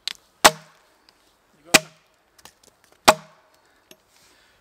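Axe chopping into a large log: three heavy strikes about a second and a third apart, each leaving a brief ring, with a couple of lighter taps between.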